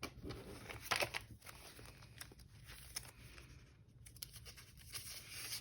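Paper banknotes and envelopes rustling and crinkling as bills are handled and leafed through, in short irregular bursts, loudest about a second in.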